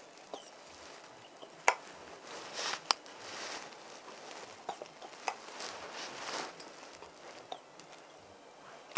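Plastic cupping cups being set on skin and evacuated with a hand vacuum pump gun: a few sharp plastic clicks and two short stretches of hissing as the pump draws air out of the cups.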